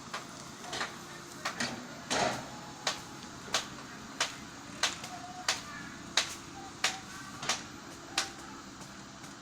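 Komatsu excavator's engine running steadily, with a series of sharp knocks over it: a few irregular ones, then an even beat of about three knocks every two seconds that stops near the end.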